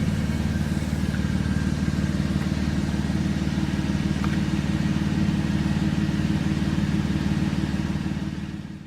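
Audi A6 3.2 V6 with a muffler delete running steadily, a low, even exhaust drone that fades out near the end.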